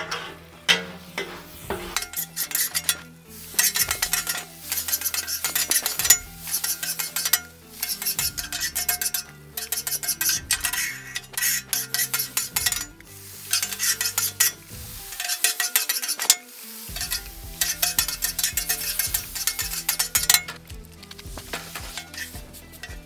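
Metal scraper rasping across the steel top of a Blackstone griddle in quick repeated strokes, with liquid sizzling on the still-hot surface; the strokes pause briefly about two-thirds of the way through.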